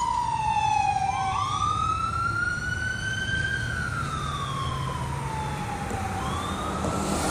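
A fire engine's siren wailing, its pitch sliding slowly down, back up, then down again, each sweep taking about two and a half seconds, over a low steady rumble. It grows a little fainter as the truck moves away.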